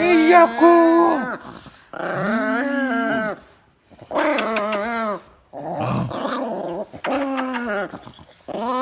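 A dog making drawn-out growling, whining vocalizations, like a dog 'talking' back, in about five pitched phrases of a second or so each that bend up and down, with short pauses between them.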